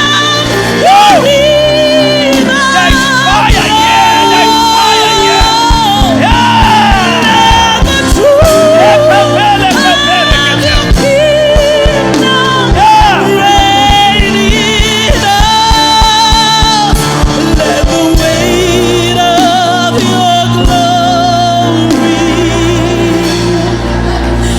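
Live gospel worship singing with band accompaniment: voices hold long, wavering notes over sustained keyboard and bass. A steady drum beat comes in about five seconds in and drops out about eighteen seconds in.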